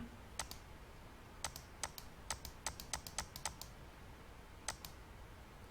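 A run of faint, irregular clicks from computer keys being pressed, about a dozen in all.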